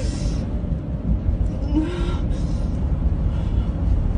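Steady low road and engine rumble of a car driving fast, heard from inside the cabin, with two short breathy hisses, one at the start and one about two seconds in.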